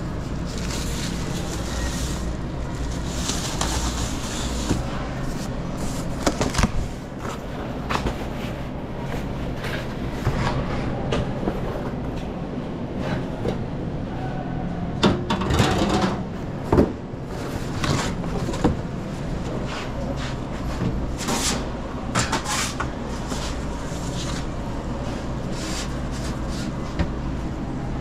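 Pizza-shop kitchen at work: a steady low machine hum under irregular clatter and knocks of equipment and utensils being handled, busiest and loudest about halfway through.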